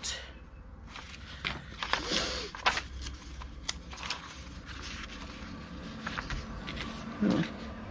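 Paper rustling with scattered light taps and clicks as journal pages and papyrus paper are handled and sorted, and a brief low sound near the end.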